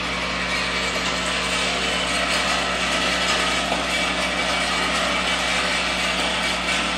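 Vibratory bowl feeder running, with a steady hum under a continuous dense rattle of small rubber O-rings being shaken along its track.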